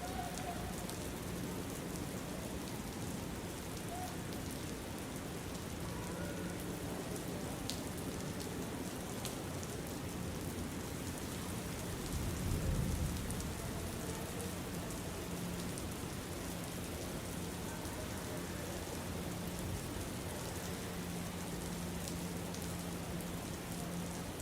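Steady rain ambience: an even hiss of rainfall with scattered fine drop ticks and a faint steady low hum. About halfway through, a brief low rumble swells and fades.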